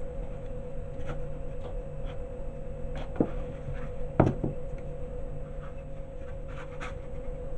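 Light handling sounds of a plastic empanada press being filled and folded shut: soft rubs and a few short knocks, the loudest two about three and four seconds in, over a steady background hum.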